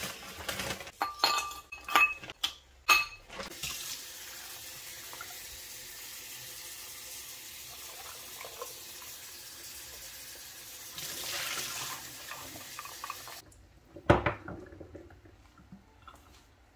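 Shrimp tipped from a crinkling plastic bag clink into a glass bowl. A kitchen tap then runs water steadily into the bowl for about ten seconds and shuts off abruptly. About half a second later the glass bowl is set down with a single loud knock.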